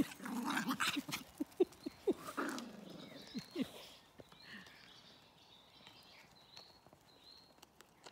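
Puppies play-fighting, with growling and short yelps in the first three to four seconds, then quieter scuffling on gravel.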